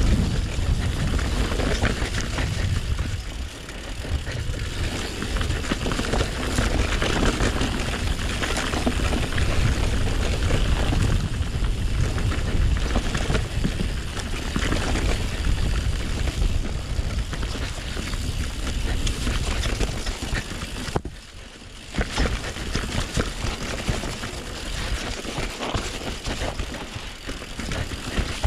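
Mountain bike descending a wet dirt trail at speed: wind rushing over the microphone, tyres rolling over the rough ground and the bike rattling over bumps, with a brief quieter moment about two thirds of the way through.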